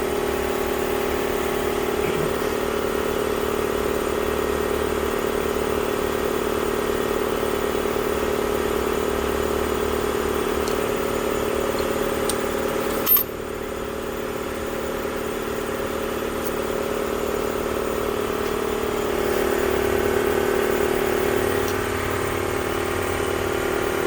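Sioux electric valve seat grinder running steadily, its motor giving a constant hum while grinding a cylinder-head valve seat. About 13 seconds in there is a sharp click and the sound drops, then builds back up.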